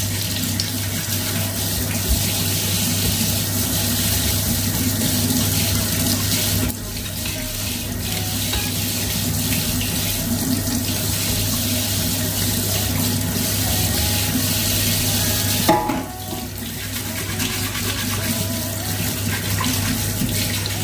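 Kitchen tap running into a sink while produce is scrubbed under it with a brush, the water splashing steadily; the flow changes briefly twice.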